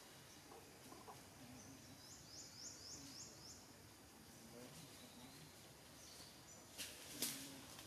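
Quiet forest background in which a bird gives a quick series of about five short high notes about two seconds in. Near the end come two sharp clicks a split second apart.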